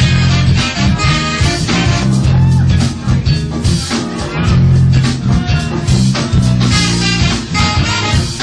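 A band playing music, with guitar and drum kit over a strong low end.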